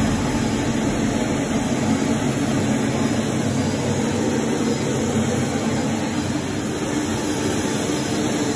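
Carpet-cleaning extraction machine running with a steady, even roar.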